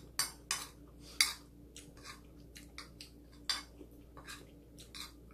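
A metal spoon scraping and clinking against a ceramic plate while rice and vegetables are scooped up: a string of short, irregular scrapes and clicks.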